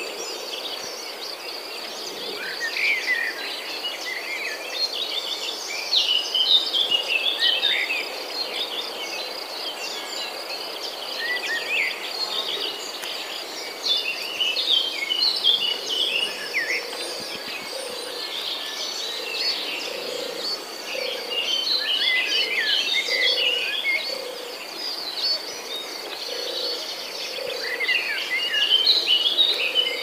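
Several birds chirping and trilling in quick, overlapping calls over a steady high insect drone. From about halfway through, a low note repeats roughly once a second underneath.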